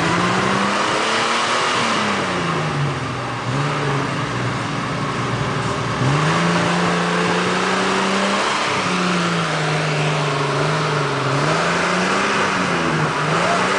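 Willys jeep engine working under load as the jeep pushes through a deep, muddy water hole, the revs rising and falling several times: up and held for a couple of seconds about halfway through, then dropping and wavering.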